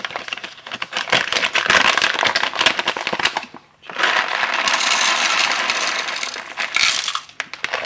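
The built-in grinder of a vintage Mr. Coffee brewer-grinder grinding whole coffee beans. It runs in two bursts of about three seconds with a short pause between. The first burst is full of sharp cracking as the beans break up, and the second is a smoother, steadier grinding.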